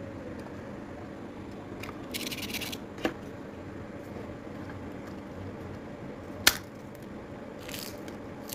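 Crisp fried potato-and-tapioca crackers crackling and snapping as a hand picks them up and squeezes them. There are two short crunchy crackles and two sharp cracks, the louder crack about six and a half seconds in, over a steady low hiss.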